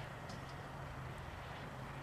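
A motor running steadily, a low even hum over outdoor background noise.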